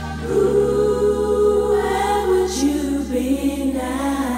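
Dance-pop music: layered female voices sing long held notes over a steady bass line, and the held chord shifts twice.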